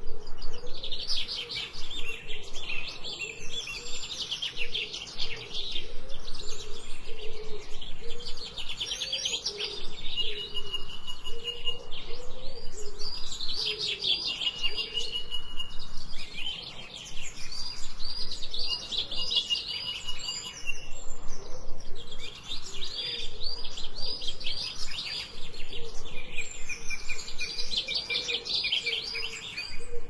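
Songbird chorus: several birds sing fast runs of chirps and trills in phrases a few seconds long, with short gaps between them. A fainter, lower warbling runs underneath.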